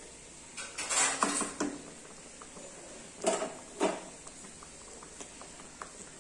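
Steel spatula scraping and clinking against a metal kadai of curry. The strokes come in two bunches, one about a second in and a pair of sharper knocks around three to four seconds in.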